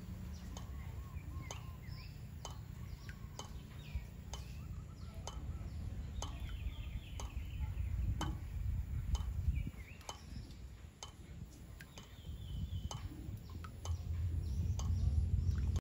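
Birds calling, with short sharp clicks about twice a second and a steady low rumble underneath.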